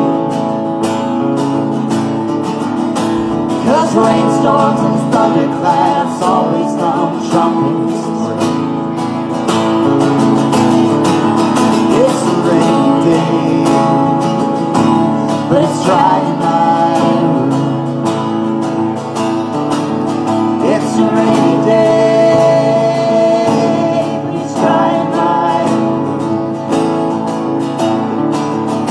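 A live acoustic song: acoustic guitars strummed with a voice singing over them.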